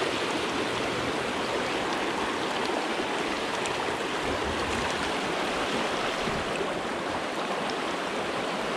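Flowing trout-stream water rushing steadily past.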